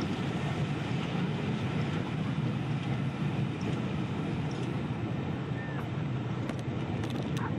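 Steady rush of a moving train heard from an open carriage window: wind on the microphone over the running noise of the coaches on the track. A few faint clicks come near the end.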